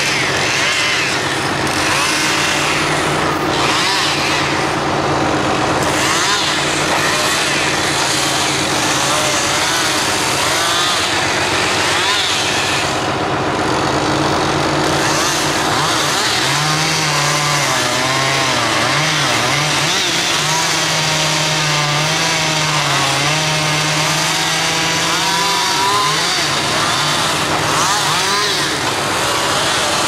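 County 1124 tractor's six-cylinder diesel engine running steadily under load as it drives a hydraulic log-loading crane, its pitch wavering up and down from about halfway in as the crane works. A chainsaw runs in the background.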